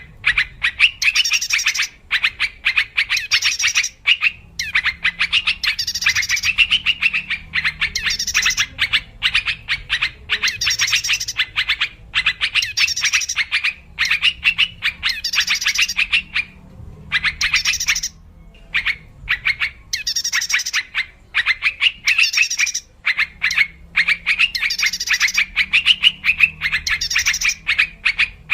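Yellow-vented bulbul (trucukan) lure call: bursts of rapid chattering, bubbly notes repeated about every one to two seconds with short pauses between phrases.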